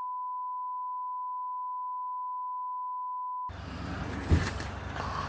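A steady 1 kHz beep tone, edited into the soundtrack in place of the original audio, sounds for about three and a half seconds and then cuts off suddenly. Low background noise and a single knock follow.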